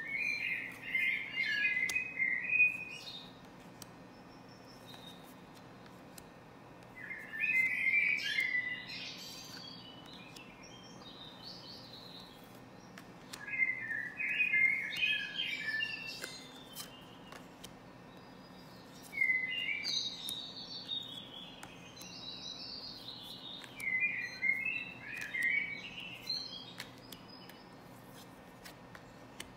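A songbird singing repeated phrases of quick, jumbled chirping notes, each phrase two to three seconds long, coming every five or six seconds.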